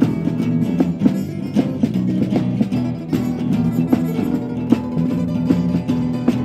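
Acoustic band playing an instrumental passage led by guitar: plucked and strummed notes over sustained low tones, with no singing.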